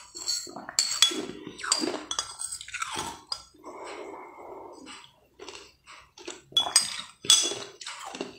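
A metal spoon clinking and scraping against a glass bowl, mixed with slurping and chewing as food is eaten straight from the bowl. The clinks come as a run of short, sharp, ringing taps, with a longer stretch of slurping in the middle.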